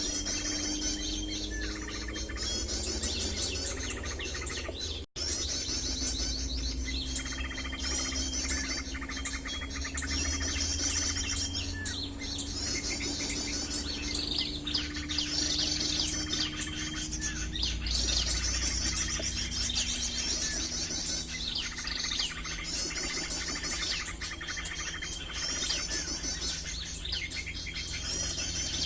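Birds chirping and singing, with high trilled phrases that repeat every few seconds over a low rumble, and a brief drop-out about five seconds in.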